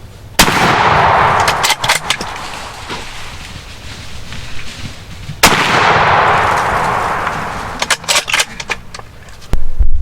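Two rifle shots about five seconds apart, each ringing out loud with a long echo that fades over a few seconds. A few sharp clicks follow each shot. A loud low rumbling thump starts just before the end.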